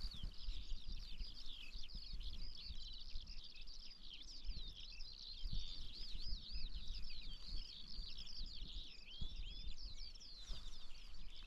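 Songbirds singing: a continuous run of quick, high chirps and warbling trills. A low rumble sits beneath them.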